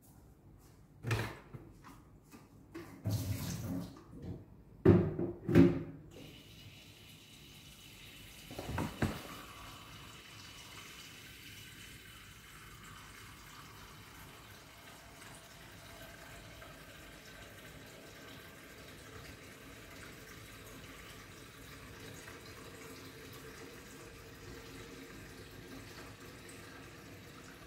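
Several knocks and bumps in the first few seconds, then water running steadily from a tap.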